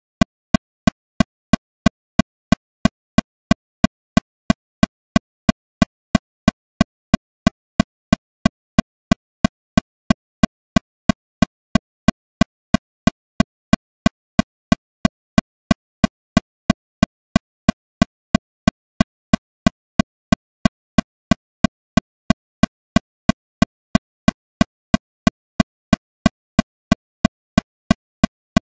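Metronome clicking at a steady 182 beats per minute, about three sharp clicks a second.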